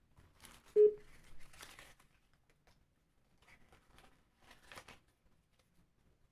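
Crinkling and handling noises, with one short, loud beep about a second in.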